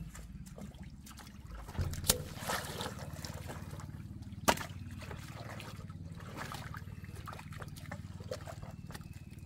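A small motor hums steadily, most likely the pump draining the water. Water splashes over it, and two sharp knocks come about two and four and a half seconds in.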